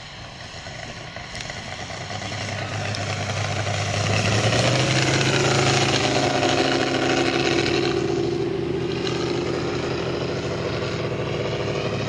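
Valach VM R5-420 five-cylinder 420cc radial engine of a half-scale RC Klemm Kl 25 running in flight on a low pass. It grows louder as the plane approaches, is loudest about halfway through, then eases off as it passes and climbs away.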